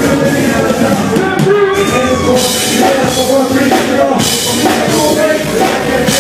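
Live band music played loud, with a drum kit and a lead vocal through a microphone.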